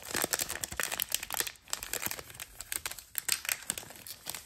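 Trading card pack's plastic wrapper crinkling and tearing as it is ripped open by hand, a fast, irregular run of crackles.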